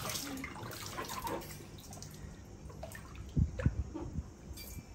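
Soft splashing and lapping of water in a plastic basin as a baby monkey swims and paddles. A few dull thumps come a little past three seconds in.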